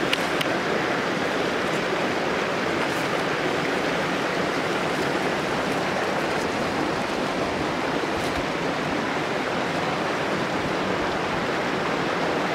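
Steady rush of running water, even and unbroken, with a couple of faint clicks at the very start.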